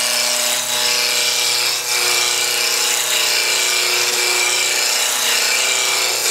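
Wood lathe spinning a spindle blank while a turning tool cuts it down toward a cylinder: a steady hiss of the cut over the lathe's steady hum.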